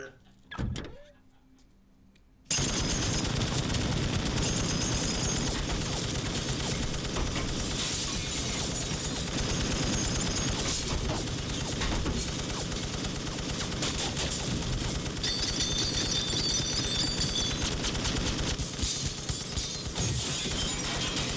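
Near silence, then about two and a half seconds in a belt-fed M60 machine gun opens up in one long, unbroken run of automatic fire.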